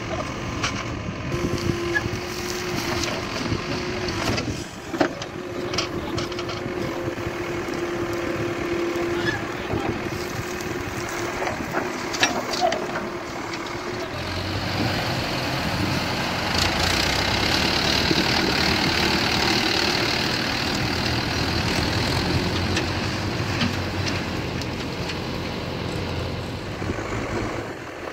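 Caterpillar backhoe loader's diesel engine running steadily while its backhoe arm digs and dumps soil, with a steady whine in the first few seconds. From about halfway the engine note grows louder and deeper, with a higher hiss over it, easing off near the end.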